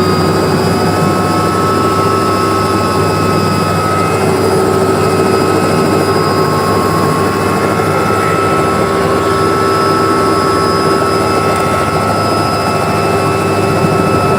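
Helicopter in flight: a loud, steady rotor and engine drone with several constant whining tones.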